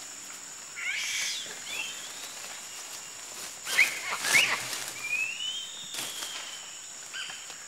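Young proboscis monkeys squealing at play: short, high-pitched squeaks and gliding calls in a few bursts, over a steady high insect drone.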